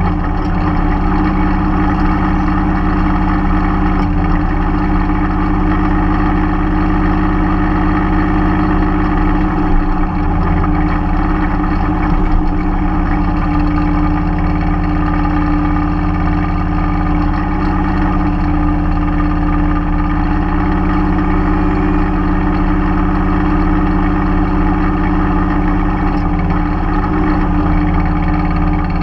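Mahindra 3016 compact tractor's diesel engine running steadily, with small changes in load about a third of the way in.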